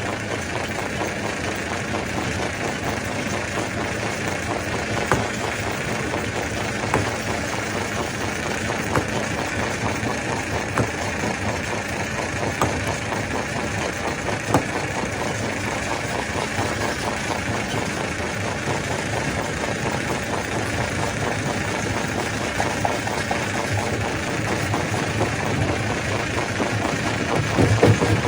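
Stone crusher machine running: a steady, loud mechanical din. A sharp knock sounds about every two seconds through the middle of the stretch, and the noise grows louder near the end.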